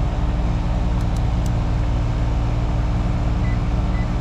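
Carrier heat pump outdoor unit running with a steady low hum, back on with a newly fitted capacitor. A few light ticks about a second in.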